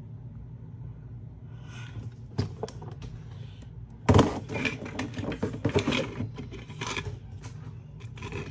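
Plastic blister packs of toy monster trucks being handled and set down on a desk: crinkling plastic and clattering knocks, loudest from about four seconds in, over a low steady hum.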